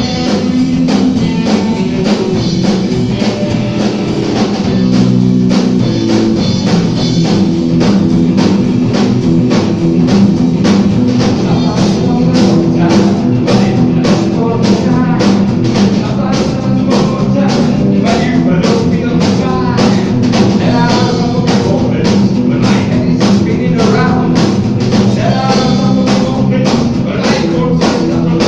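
Live rock band playing: electric bass, electric guitar and drum kit keeping a steady beat of about two strokes a second, with a man singing over it in the later part.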